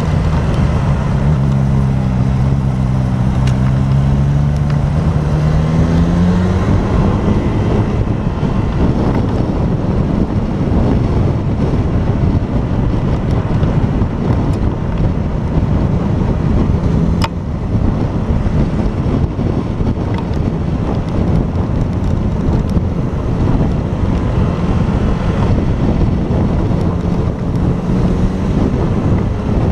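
Motorcycle engine running, its pitch rising as it accelerates a few seconds in. After that, heavy wind noise on the camera microphone at riding speed covers most of the engine.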